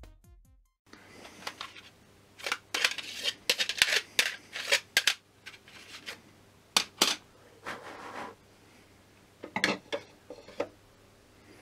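Hard plastic toy records clacking and scraping as they are handled, and one is set down onto the plastic turntable of a Fisher-Price music box record player: irregular clicks and rubbing scrapes.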